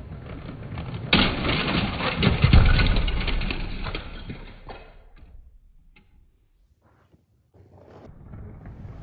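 Motorised Lego train running on plastic track and crashing into a Lego truck at a crossing: a sudden crash about a second in, then a few seconds of loud clattering as the truck is pushed, fading out. After a short silence, a second train's running noise rises again near the end.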